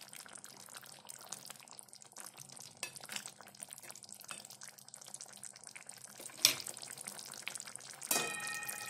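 Thick curry simmering with a fine crackle in a kadhai while a wooden spatula stirs it. There is a sharp knock about six and a half seconds in. Near the end comes a clank that rings briefly, as a glass lid is set on the pan.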